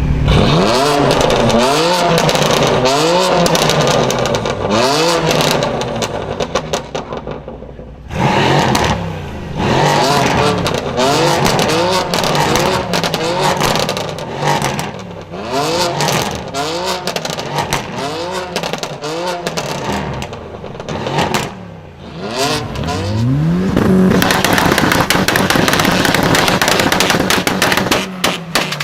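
Car engine with a modified exhaust revved over and over in short blips, each one rising in pitch and falling away with crackles and pops. Near the end it rises once more and holds loud and steady.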